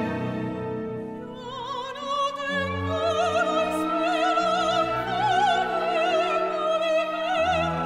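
Operatic soprano singing a zarzuela duet line with wide vibrato over a full orchestra with strings. The orchestra plays alone and softer at first, and the soprano's voice enters about a second and a half in.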